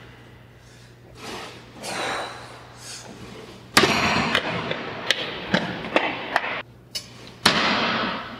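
Heavy, forceful breathing of a man straining through calf raises on a plate-loaded leg press, loudest from about halfway in, with several sharp clanks from the machine mixed in.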